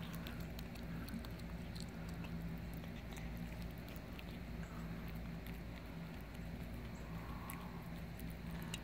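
A cat chewing and biting at raw turkey giblets: a run of small, irregular clicks and smacks, with a steady low hum underneath.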